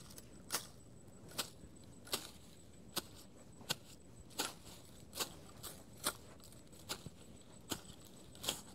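Hand blade cutting grass at ground level in short, crisp strokes, about one every 0.8 seconds, in a steady rhythm.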